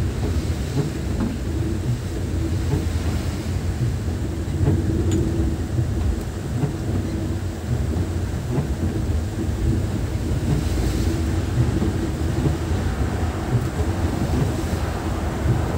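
KSRTC Airavat Club Class Volvo coach on the move: a steady low engine and road rumble with a faint hum.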